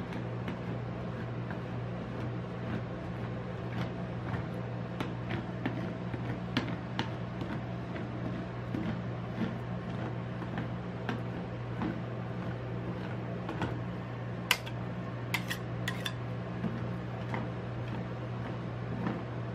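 Metal spatula scraping and tapping on the steel freezing plate of a rolled-ice-cream machine as the ice cream is spread thin, over the machine's steady low hum. A few sharper clicks come about fifteen seconds in.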